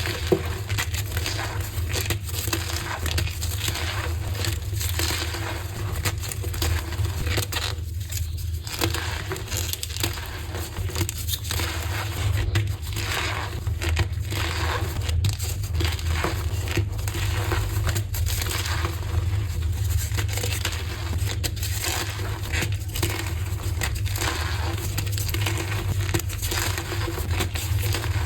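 Blocks of gym chalk being crushed, a dense run of crisp crunching and crumbling crackles with no pauses, over a steady low hum.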